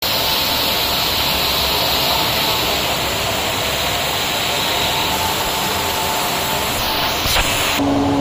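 Circular knitting machines running together: a loud, steady mechanical noise with faint steady whining tones through it. Near the end the noise cuts abruptly to a quieter steady hum.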